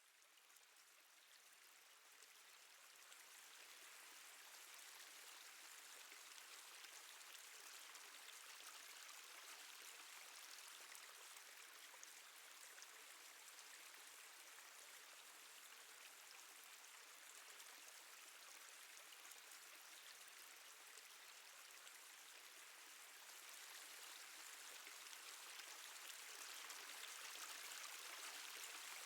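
Faint, steady trickling and dripping water, processed to sound as if inside a cave. It fades in over the first few seconds and grows a little louder near the end.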